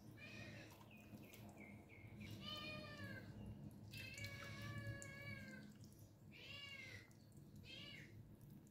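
Domestic cat meowing repeatedly, about five faint meows, the longest about a second and a half.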